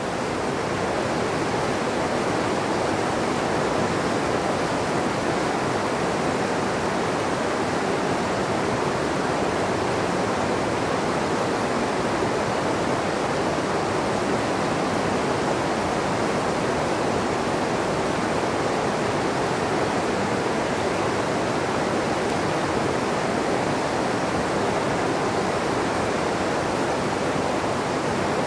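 Mountain river rushing steadily over rocky whitewater rapids, an even unbroken hiss of water.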